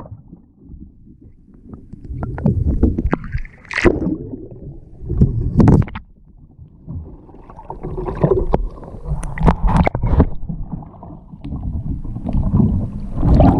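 Water splashing around a kayak and paddle, a few separate splashes with a busier stretch past the middle, over a steady low rumble.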